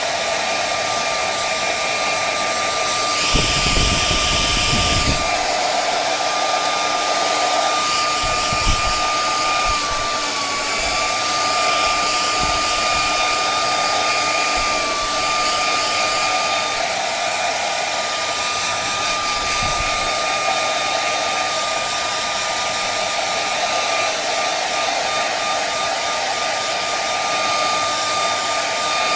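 Handheld hair dryer running steadily at maximum fan speed: a steady whine over the rush of air. About three seconds in, a louder deep rumble lasts for about two seconds, and brief low thumps come now and then.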